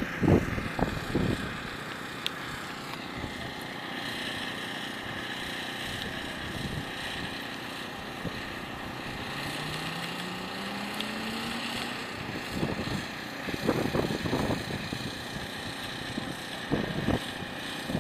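Wind buffeting the microphone in gusts near the start and again towards the end, over a steady background hiss. A faint engine note rises in pitch for about two seconds in the middle.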